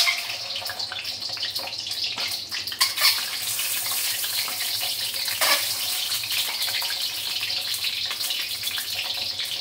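Peeled hard-boiled eggs frying in hot oil in a wok: a steady sizzle with crackles and a few sharper pops, the loudest right at the start and about three seconds in.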